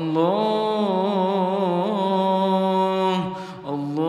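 A solo voice chanting an Arabic dua, drawing out the word "Allah" in one long melodic note with a wavering pitch. The note breaks off about three seconds in, and the next "Allah" begins just before the end.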